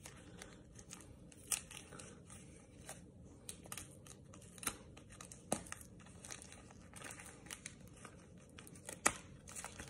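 Paper wrapping of a small card package being picked at, torn and peeled open by hand: faint, scattered crinkling and tearing with a few sharp clicks.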